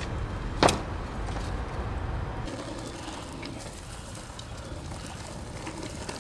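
Skateboard wheels rolling with a steady rumble, and one sharp clack of the board hitting the ground about half a second in; after about two and a half seconds the rolling is quieter and hissier.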